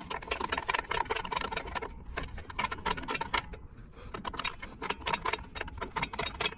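Rear drum-brake star-wheel adjuster on a Ford F350 being turned with a brake adjusting tool, its teeth clicking in rapid, uneven ticks as the adjuster is backed off to pull the shoes in, with a short lull near the middle.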